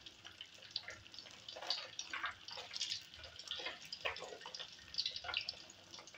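Hot oil sizzling and crackling around a tilapia head frying in a wok, with irregular small pops.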